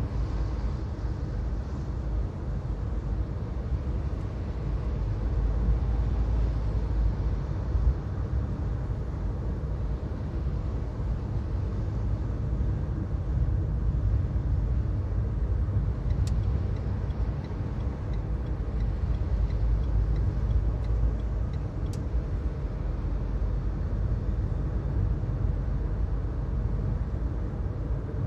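Car driving at highway speed, heard from inside the cabin: a steady low rumble of tyres, road and engine. A few faint clicks and ticks come through around the middle.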